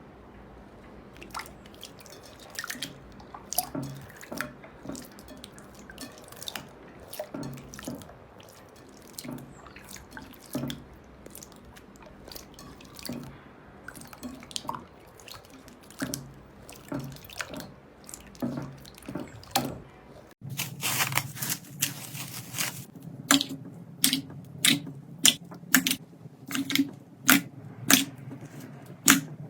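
Slime being squeezed and pressed by hand, making irregular wet clicks and pops. About twenty seconds in, the sound changes to louder, evenly spaced crisp pops, about three every two seconds, over a steady low hum.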